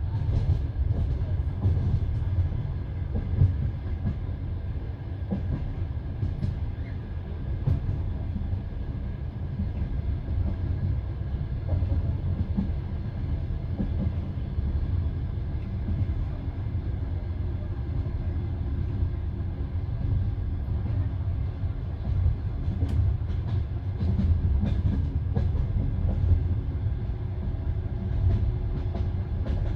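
Passenger train carriage running along the line, heard from inside: a steady low rumble of the wheels on the track with scattered short clicks and knocks from the wheels.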